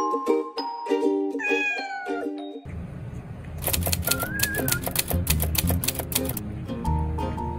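Light background music, with a short meow-like falling glide near the start. After a cut, a cat chews and licks food from a china dish, making a quick run of sharp clicks for a few seconds over the music.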